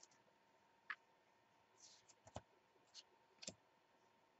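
Faint clicks of trading cards being flicked through and handled, about five short ticks spread a second or so apart.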